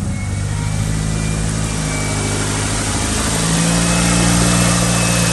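2002 Mazda Protege5's 2.0-litre four-cylinder engine idling steadily through a freshly installed header and exhaust, shortly after being started. It gets slightly louder from about three and a half seconds in.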